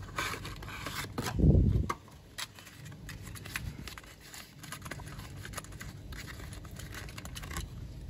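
Small cardboard toy box being opened by hand: scraping, rustling and light clicks as the flap is worked open and the diecast fire engine is slid out. A dull thump about a second and a half in is the loudest sound.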